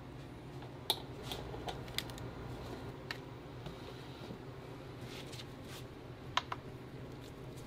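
A stainless steel trigger ice cream scoop working through a tray of firm ice cream. A few sharp metallic clicks and taps, the loudest about a second in and again near six and a half seconds, come over soft scraping and a low steady hum.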